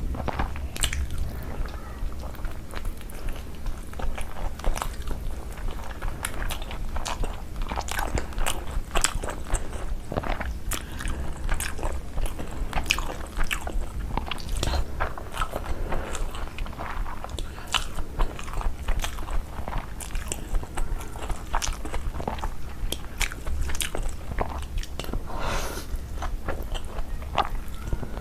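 A person chewing and biting food close to the microphone: a dense, irregular run of small crisp clicks and mouth smacks, over a steady low hum.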